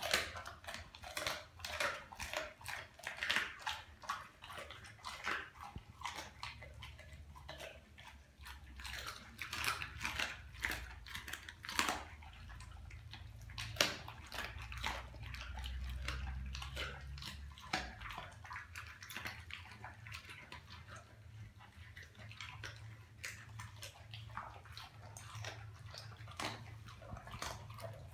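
A Doberman chewing and licking up scraps of raw tilapia from a tile floor: a run of irregular short wet clicks and smacks. A low rumble runs under it for a few seconds about halfway through.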